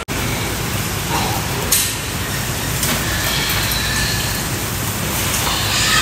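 Pig-feed dispenser running, pelleted feed pouring from it into a concrete trough with a steady mechanical rumble. A single sharp click comes about two seconds in.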